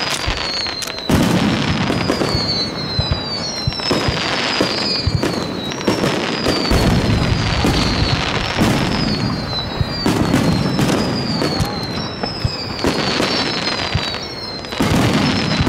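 Aerial fireworks in a rapid barrage: a dense run of bursts and booms with a heavy rumble, and a string of high whistles that slide down in pitch, one after another.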